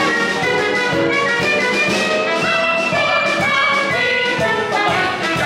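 Upbeat music with brass and a steady beat, a backing track played for a musical-theatre dance rehearsal.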